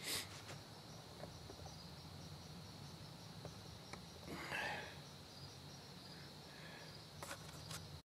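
Faint steady high-pitched trill of crickets, with brief rustles right at the start and again about four and a half seconds in.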